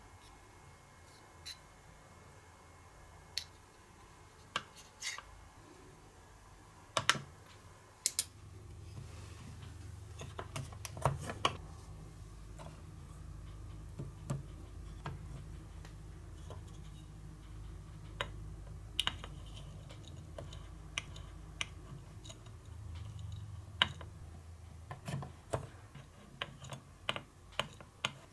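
Small plastic clicks and taps of a toy spoon and paddle against the little plastic containers of a Konapun miniature food kit, scattered irregularly, with a soft scraping as the granular toy rice is scooped. A faint low hum runs underneath from about eight seconds in to near the end.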